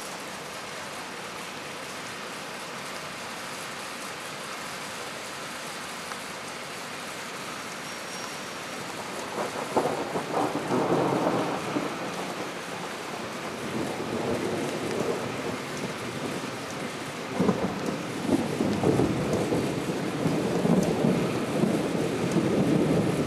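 Steady rain hissing, then two peals of thunder: the first breaks in about nine seconds in and rumbles for several seconds; the second opens with a sharp crack a little past halfway and keeps rumbling.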